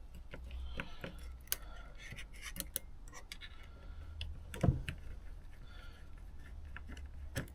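Small metal clicks and taps of a screwdriver and loose screws being worked on a motorcycle carburettor, with one louder knock about four and a half seconds in.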